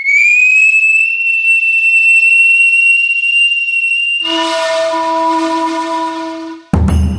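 A shrill whistle tone held for about four seconds, creeping slightly upward in pitch, then a lower horn-like blast, then a sudden deep boom near the end.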